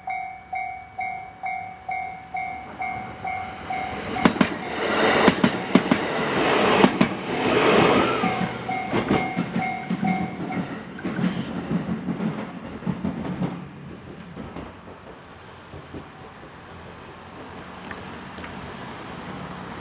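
A Japanese level crossing's electronic warning bell clangs about three times a second. A train then passes with wheels clicking over the rail joints, half drowning the bell. The bell stops about ten seconds in, and the train noise dies away soon after.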